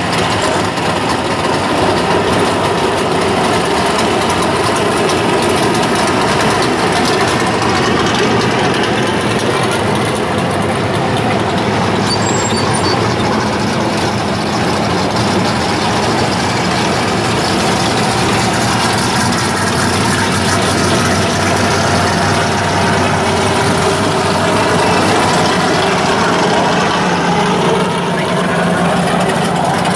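Several modified drag-style street cars' engines running loudly at low speed as the cars roll past one after another, with a steady, unbroken rumble.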